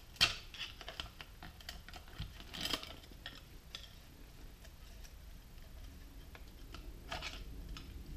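Screwdriver clicking and scraping against the copper windings of a sump pump motor as the cut coil is pried out of its housing: scattered small clicks, with a sharp click just after the start and two brief scraping rustles, one a third of the way in and one near the end.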